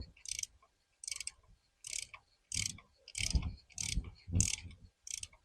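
Hand socket ratchet clicking in repeated short strokes, about one and a half a second, as it works bolts loose.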